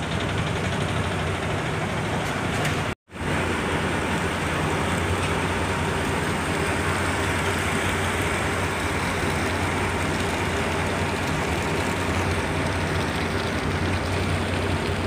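Steady drone of a jangar pontoon ferry's engine under way, mixed with the wash of water and wind noise. The sound cuts out for a moment about three seconds in.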